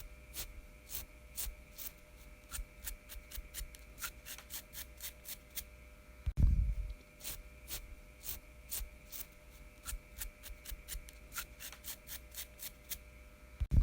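A man scratching his beard: short, sharp rasping scratches of fingers through the whiskers, a couple a second in irregular runs. A loud low thump comes about halfway through.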